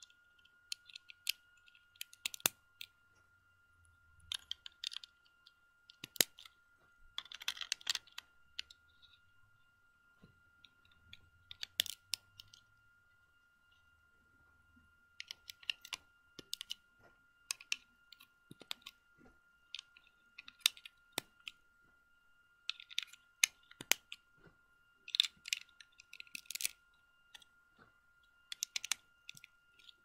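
Lego plastic bricks being handled and snapped together by hand: irregular sharp plastic clicks, coming in small clusters with short pauses between.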